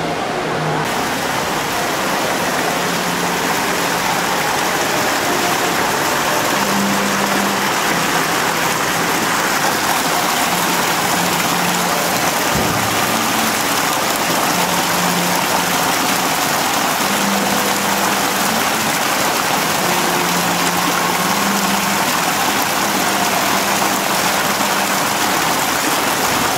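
Ornamental fountain water splashing steadily into its stone basin, a continuous even rush.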